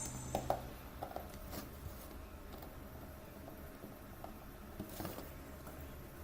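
A few light taps and clicks, a cluster in the first two seconds and one more about five seconds in, over a steady low hum.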